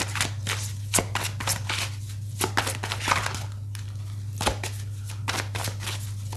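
Tarot cards being shuffled and handled: an irregular run of soft sharp snaps and flutters, over a steady low hum.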